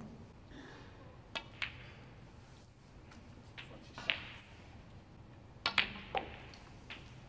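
Snooker balls clacking: a few isolated sharp clicks, then about two-thirds through a quick run of three clicks as a shot is played, the cue tip striking the cue ball and ball hitting ball.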